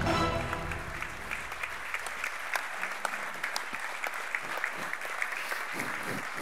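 Audience applauding, a dense steady patter of clapping, as the end of a piece of film music fades out in the first second.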